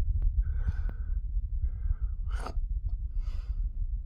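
A person breathing audibly close to the microphone, four short breaths about a second apart, over a steady low rumble.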